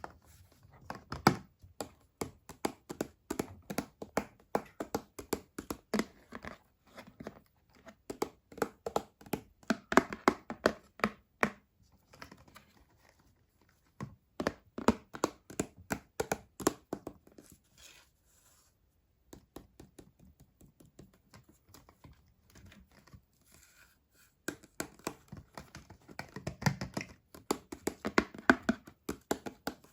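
Hands opening a doll's packaging: cardboard and tape tearing, plastic crinkling, and quick runs of clicks and taps. The sounds come in bunches, with a short pause a little past the middle.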